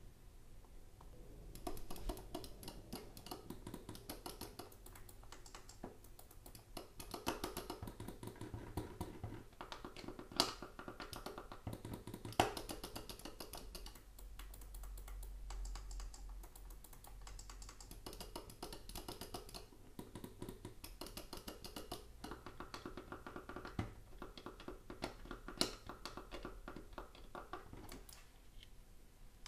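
Razer Basilisk V3 gaming mouse being clicked rapidly, in long runs of quick clicks starting about two seconds in, with a few louder single clicks near the middle.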